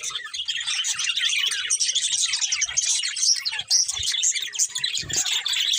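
Several budgerigars chattering and warbling together in a dense, continuous stream of chirps, with a few brief low knocks in the background.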